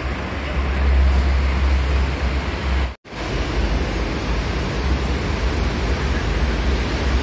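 Steady rushing ambient noise with a heavy low rumble from wind on the phone microphone, on an open-sided elevated station platform. The sound cuts out for a split second about three seconds in at an edit, then carries on unchanged.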